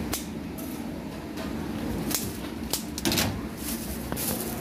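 Sharp clicks of a wire egg slicer cutting a boiled egg, a few scattered over the first three seconds, then a plastic bag crinkling near the end.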